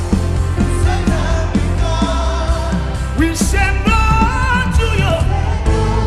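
Live gospel band playing with drums, electric guitars and keyboard under a heavy steady bass, while a male lead singer sings over it with backing vocalists. The voice is strongest and most sustained about halfway through.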